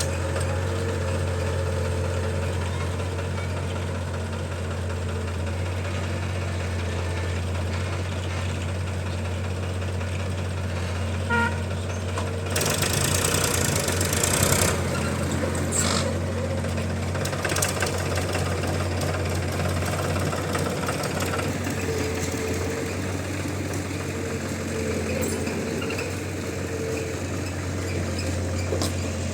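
Heavy diesel machinery engine running steadily at a low hum. About halfway through, a louder rushing noise lasts roughly two seconds.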